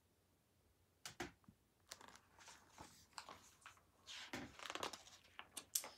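Pages of a large hardcover picture book being turned: soft paper rustling with a few light taps and clicks, starting about a second in.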